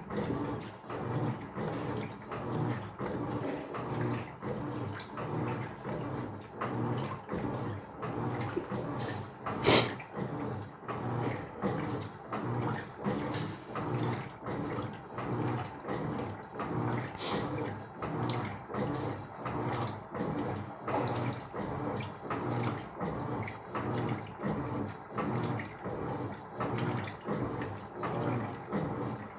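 Electrolux LF75 top-loading washing machine agitating a load, its water sloshing in even strokes about every three quarters of a second. A single sharp click about ten seconds in.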